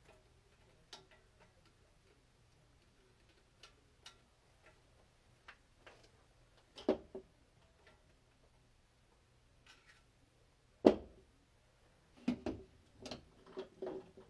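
Metal hand tools and engine parts clinking and clanking during the teardown of a Subaru FA20 engine: scattered light ticks, a few louder clanks about seven seconds in, the loudest clank near eleven seconds, and a quick run of clanks near the end.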